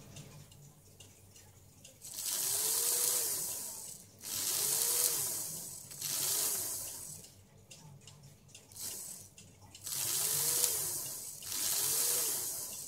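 Märklin 3046 model steam locomotive's electric motor run in five short bursts of one to two seconds each, hissing, with a whine that rises and falls in pitch as it spins up and runs down each time power is applied. The mechanism has just been cleaned and straightened and runs quite well again.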